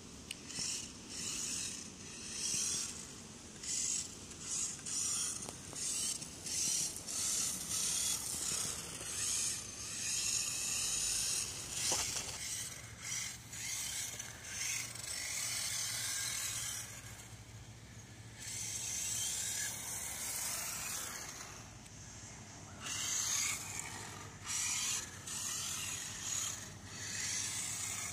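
Traxxas radio-controlled rally car's electric motor and geartrain whining, rising and falling in pitch in repeated bursts as the throttle is worked, with two quieter lulls in the second half.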